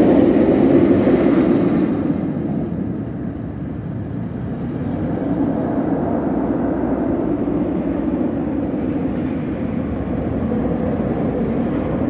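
A steady low rumble, louder and fuller for the first two seconds, then easing to an even level.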